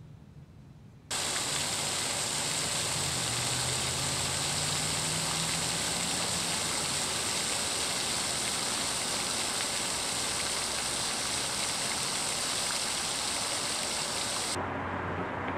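Floating pond fountain spraying a jet of water that falls back and splashes onto the pond surface, a loud steady rush. It starts abruptly about a second in and cuts off shortly before the end, where a quieter low hum takes over.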